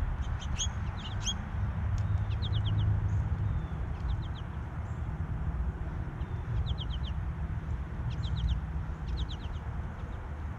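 Small songbirds calling: short runs of three or four quick high notes, repeated every second or two, over a steady low rumble.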